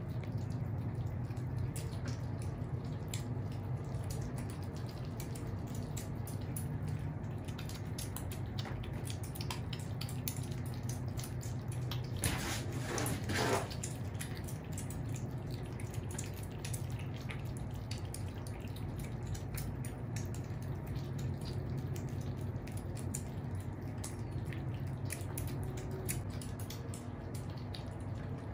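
Scottish Fold and Scottish Straight kittens and adult cats eating from a shared plate, slurping: a steady stream of quick wet smacking and lapping clicks. About twelve seconds in, a louder rustling noise lasts about a second and a half.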